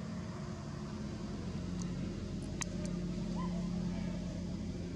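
A steady low engine hum runs throughout, with a single sharp click about two and a half seconds in.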